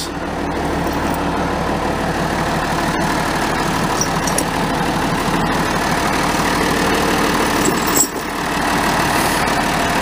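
International Harvester 1066 tractor engine running steadily, with a brief dip in loudness about eight seconds in.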